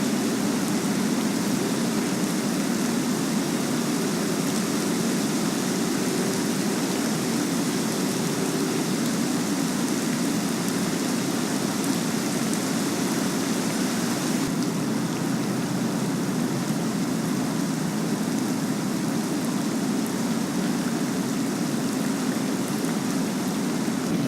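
Steady rain falling, a continuous hiss whose higher part eases a little about halfway through.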